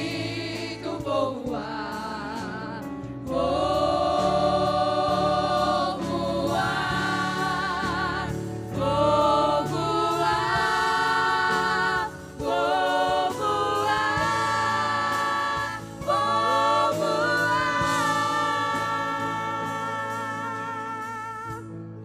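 Women's vocal ensemble singing a gospel hymn in harmony over a steady instrumental accompaniment, with long held notes that waver in vibrato and brief breaks between phrases.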